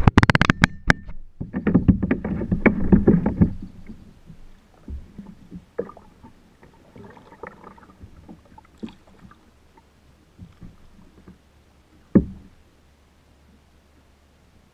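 Handling noise on a kayak: a camera being gripped and set in place, with close clicks, knocks and rubbing for the first three and a half seconds. Then quieter paddling on calm water, with scattered light taps and splashes and one sharper knock about twelve seconds in.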